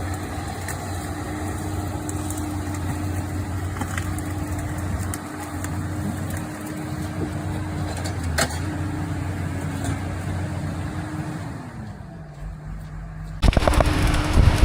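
Forestry machine's engine running steadily; about twelve seconds in, its pitch drops. Near the end a sudden, much louder noise cuts in.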